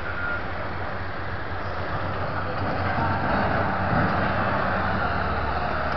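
Diesel engine of a large wheel loader running steadily, working a little harder and louder about halfway through.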